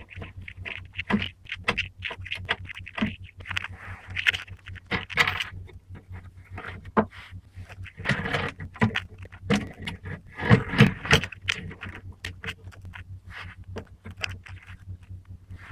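Irregular clattering, knocking and scraping of hard objects being handled, over a steady low hum, with a louder cluster of rasps and knocks about eight to eleven seconds in.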